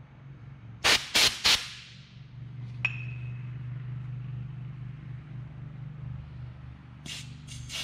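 Short blasts of compressed air from a blowgun, air-checking a clutch piston passage in a JCB powershift transmission: three quick hisses about a second in and two more near the end. A single light metallic tick comes between them, over a steady low hum.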